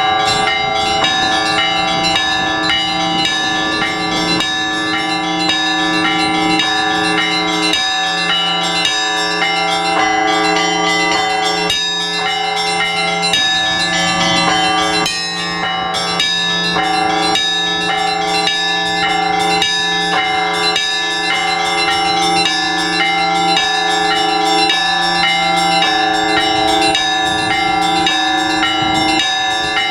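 Orthodox church bells rung by a bell-ringer for the all-night vigil: many bells of different pitches struck together in a dense, continuous peal, deep bells sounding under a constant clatter of smaller ones.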